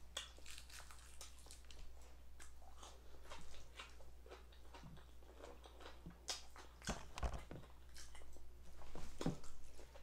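Close-up mouth sounds of chewing crispy fried chicken: a steady run of small wet clicks and crunches, with louder crunches about two-thirds of the way through and again near the end, over a faint steady low hum.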